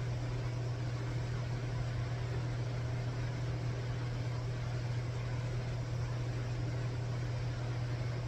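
Steady low machine hum with a constant hiss behind it, unchanging throughout.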